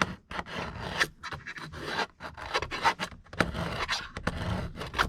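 Hand tool working a wooden trim strip in rough back-and-forth scraping strokes, taking material off so a socket box will fit.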